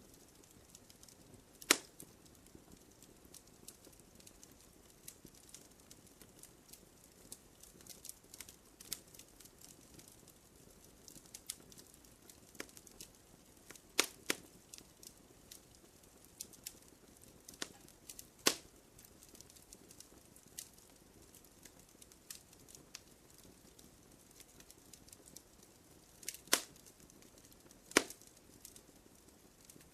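Wood fire crackling gently: scattered small snaps and pops over a faint hiss, with a few louder, sharper pops spread through.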